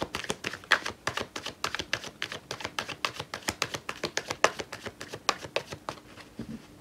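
A deck of Oracle Gé cards being shuffled by hand, the cards clicking and slapping against each other in a quick, irregular patter that stops about six seconds in.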